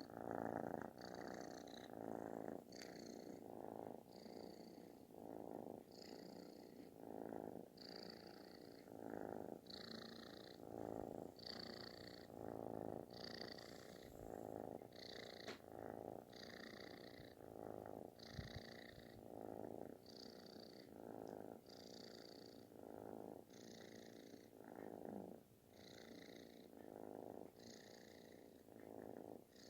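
Calico kitten purring with a loud, snore-like rasp. It swells and fades in a steady rhythm a little faster than once a second as it breathes in and out.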